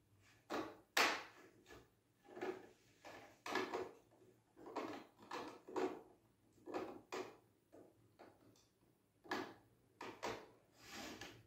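Hard plastic parts of a Kishiryu-Oh combining robot toy being handled and snapped together, giving an irregular string of short clicks and knocks.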